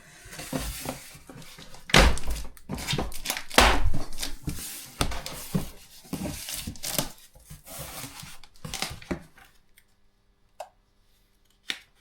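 A cardboard shipping box being opened and its packaging handled: rustling, tearing and crinkling, with two loud thumps about two and three and a half seconds in. The handling stops near the end, leaving only a couple of faint clicks.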